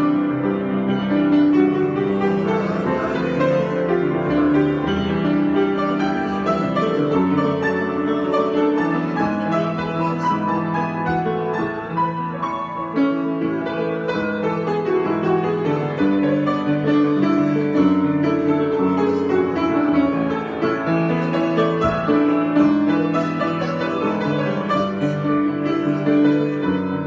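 Improvised piano music played without a break, many overlapping notes sustained and ringing into one another.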